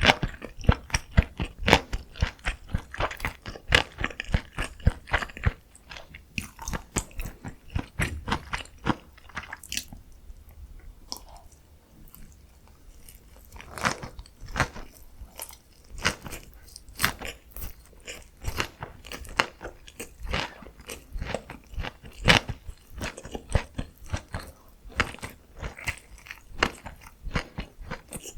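Close-miked chewing of food: a dense run of crisp crunches and clicks from bites and chewing, easing off for a few seconds near the middle before picking up again.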